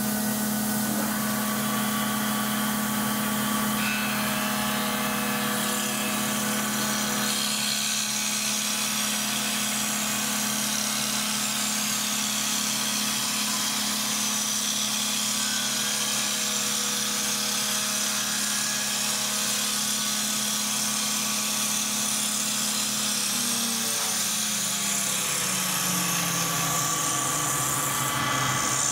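Hokusan CL-3 woodworking lathe running and cutting a spinning wooden blank into a shoehorn: a steady motor hum under the hiss of the blade shaving the wood. Late on, the hum slides down in pitch.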